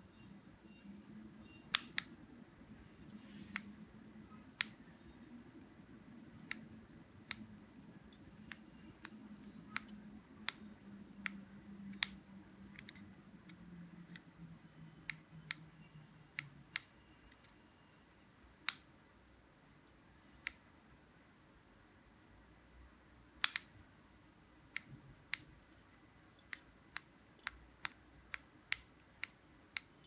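Sharp plastic clicks of push buttons on handheld remote control key fobs being pressed, single clicks every second or two, then a quicker run of about two a second near the end.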